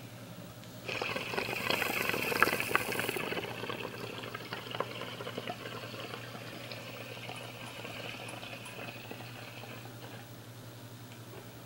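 Water bubbling in a glass straight-tube bong as smoke is drawn through it. It starts about a second in, is loudest for the next two seconds, then goes on more weakly and fades out near the end.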